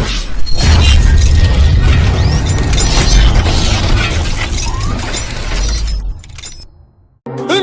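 Comic ringtone playing loud: a dense, noisy jumble of sharp clicks and crashes over heavy bass that fades out about six seconds in. After a brief silence, a new ringtone tune with a clear melody starts right at the end.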